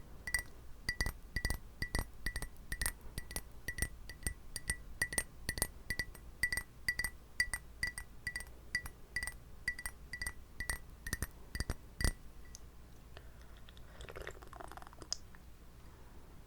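Fingernails or fingertips tapping a glass at about two to three taps a second, each tap ringing at the same clear pitch. The tapping stops about twelve seconds in, leaving only a faint soft rustle.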